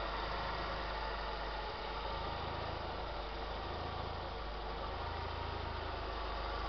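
Mercedes-Benz CLK 230 Kompressor's supercharged 2.3-litre four-cylinder engine idling steadily, heard up close with the bonnet open.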